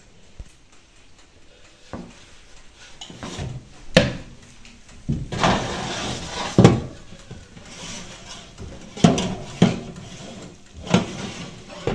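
Metal baking trays clattering and scraping in an oven as they are handled with a tea towel: a series of sharp knocks with scraping between them, after a quiet start.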